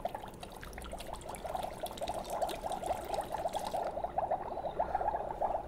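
Water poured from a small bottle into a Magic Mixies toy cauldron: a steady pouring trickle made of a rapid run of little gurgles.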